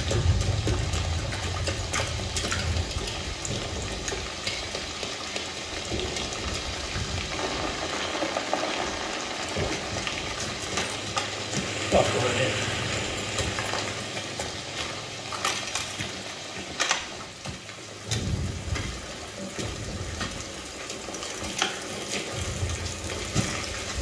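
Steady rain hissing on a war film's soundtrack, with a few deep low rumbles and scattered sharp clicks, played through a Klipsch home-theater speaker system and picked up by a phone microphone in the room.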